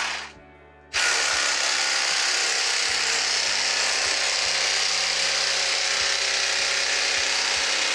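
Electric fillet knife running with a steady buzz as it cuts a perch fillet along the backbone. It stops briefly right at the start and comes back on about a second in.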